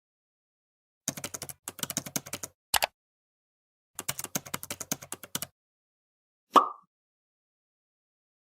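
Computer keyboard typing: two quick runs of key clicks, each about a second and a half long, with a sharp double click between them, then a single short pop about six and a half seconds in.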